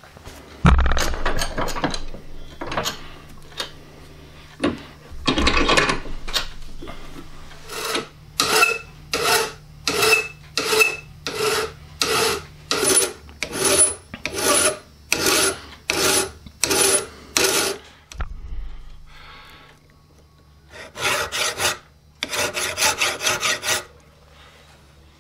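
A hand file scraping across the freshly hacksawed steel end of a Mossberg 500 shotgun barrel clamped upright in a vise, squaring the cut. A few uneven strokes come first, then a steady run of about two strokes a second. After a short pause, a quicker run of strokes comes near the end.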